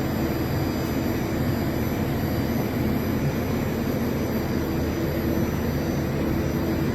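Emerson 40 kVA online UPS running after repair: its cooling fans give a steady rushing noise, with a low hum and a faint high-pitched whine held steady throughout.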